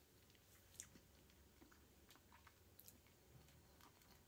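Near silence with a few faint mouth clicks and small wet sounds of a Tic Tac mint being sucked, the clearest click just under a second in.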